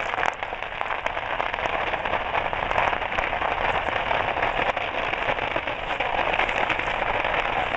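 Burning fireworks stock crackling: a dense, steady patter of many small pops and cracks, with no break.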